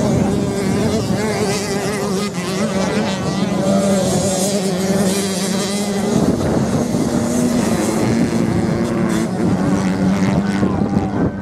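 Several off-road motorcycles racing on sand, their engines running together in an overlapping drone whose pitch wavers slightly as they rev and ease off.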